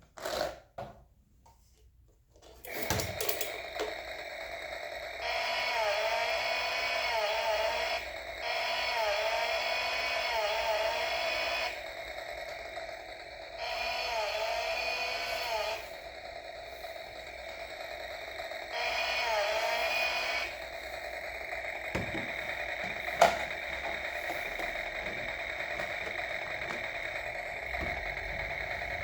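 Battery-powered toy STIHL chainsaw running with a steady electric whir. Four times it swells for two or three seconds into a louder, warbling engine-revving sound effect. A sharp click comes about 23 seconds in.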